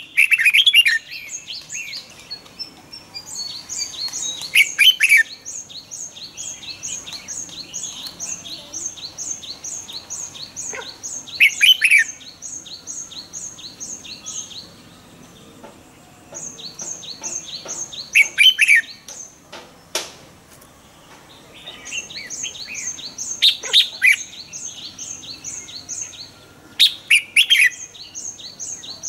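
Red-whiskered bulbul singing short, loud phrases that fall in pitch, one every five to seven seconds. Behind them a fast, even series of high chirps runs on and off.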